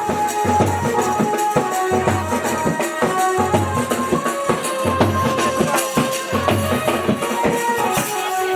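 Music with a steady, repeating drum beat, percussion hits and a held melody line.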